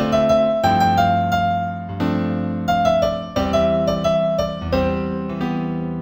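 Instrumental New Age piece in C major on piano: a melody of single struck notes over sustained chords, each note ringing and fading before the next.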